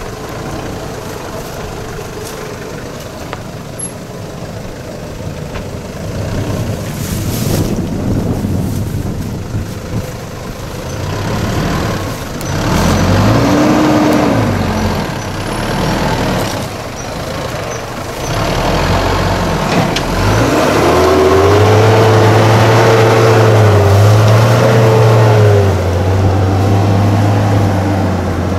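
SsangYong Musso SUV's engine working hard as it climbs a steep dirt trail, revving up and down about halfway through, then held high with two brief dips near the end.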